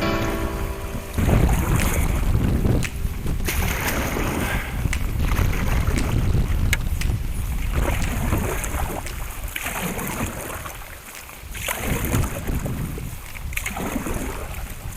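Gusting wind buffeting the microphone over water sloshing around a canoe on open water, with a few sharp knocks.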